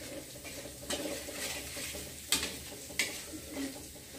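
Ground spice paste sizzling in oil in a metal wok while a spatula stirs and scrapes the pan, with two sharp scrapes a little after halfway. The paste is being sautéed until fragrant.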